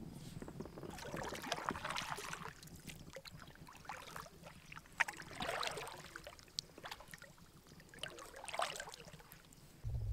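Canoe paddle strokes in calm water: the blade swishing and splashing through the water about every three to four seconds, with small sharp ticks between strokes.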